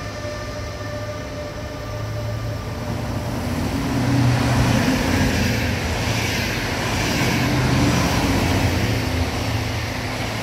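A passenger train passing at speed along the nearest track: a broad rumble of wheels on rails that swells from about three seconds in and stays loud. Before it, a steady electric whine of several tones from the red ÖBB electric locomotive moving off fades away in the first couple of seconds.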